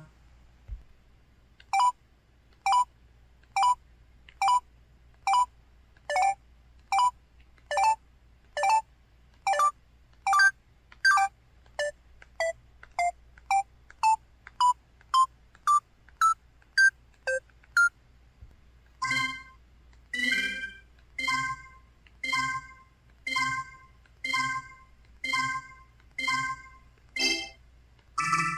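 Built-in system tones of an EVER EV-W530 mobile phone with a Qualcomm CMX 72-voice sound chip, recorded straight from the handset's output: a string of short electronic beeps. First come single beeps about once a second, then a quicker run of blips climbing in pitch, and from about two-thirds of the way in, fuller chord-like blips about once a second.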